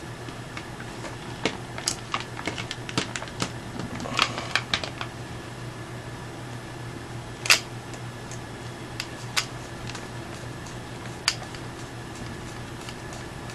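Scattered light clicks and taps of airsoft rifle parts being handled, with one sharper knock about halfway through, over a steady low hum.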